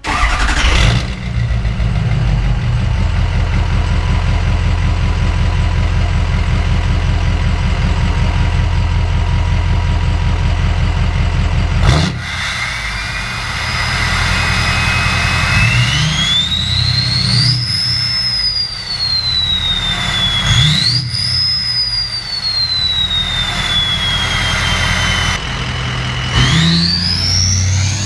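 Ford F-350's 6.0 Powerstroke V8 turbodiesel with a new 4-inch Flo Pro turbo-back exhaust and no muffler: a cold start, catching at once and settling into a loud idle. Then it is revved twice, the turbo scream rising high and falling back with each rev, and near the end the truck pulls away with the turbo whistle climbing steeply.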